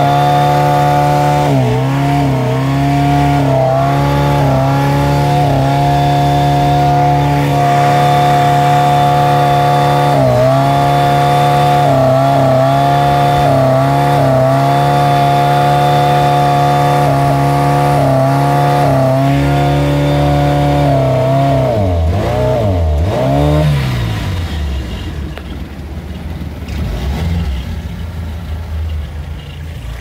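1989 OMC Cobra sterndrive's 2.3 L four-cylinder engine running under load with a steady drone, stumbling briefly every second or two as its pitch dips: a misfire, which the owner suspects is electrical. About three-quarters of the way through the engine note swoops down a few times and drops to a lower, quieter, rougher running.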